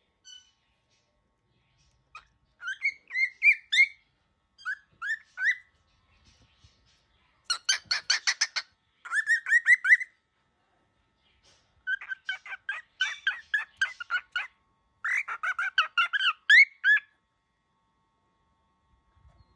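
Young cockatiel calling angrily in about six short bouts of quick, repeated harsh squawking notes, with one harsher, rasping bout near the middle.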